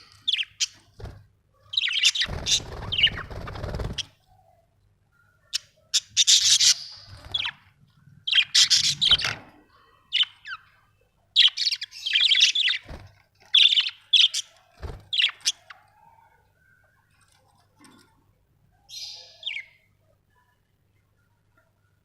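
Budgerigars chirping and chattering in irregular bursts of short, high calls, with a noisy rustling burst about two seconds in. The calls thin out after about 16 seconds, with one last call near 19 seconds.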